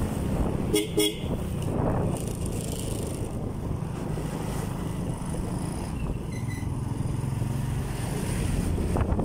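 Steady rumble of a motorcycle riding in traffic, with wind on the microphone. About a second in, a vehicle horn gives two short beeps.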